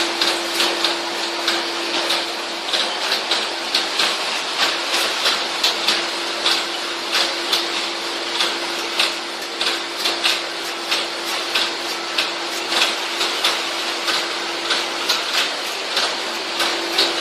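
Styrofoam block machine running: a steady hum with a quick, uneven clicking over it.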